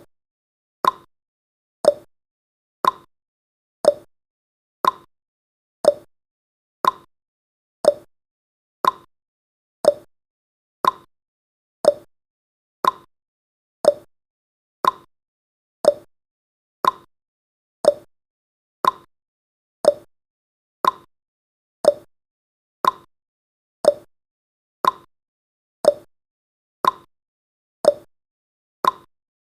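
Countdown timer's ticking sound effect: one short, sharp tick every second, evenly spaced, each fading quickly.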